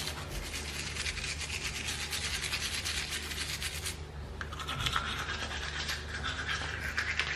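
Rapid scratchy brushing strokes that keep going for several seconds and change tone a little over halfway through, over a low steady hum.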